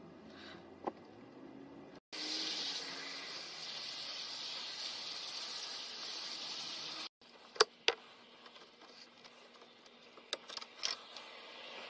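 Water spraying in a steady hiss for about five seconds during car washing, cut off abruptly, followed by a few sharp clicks and knocks.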